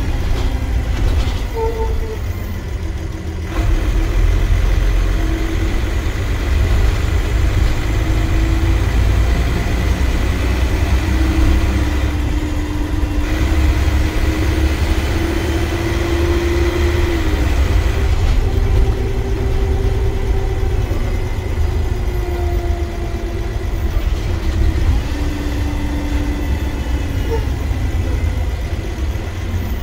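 Dennis Trident double-decker bus's engine and automatic transmission heard from the upper deck as the bus drives, a strong low rumble under a pitched drone. It gets louder about three and a half seconds in as the bus pulls harder. The drone slowly climbs and then drops back as the gearbox shifts.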